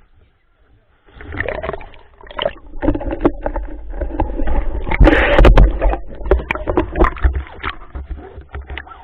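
Water splashing and sloshing with many sharp knocks and clicks and a low rumble, starting about a second in and loudest around the middle.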